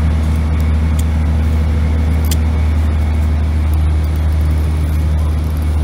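A steady low engine drone that holds unchanged throughout, with a couple of faint clicks.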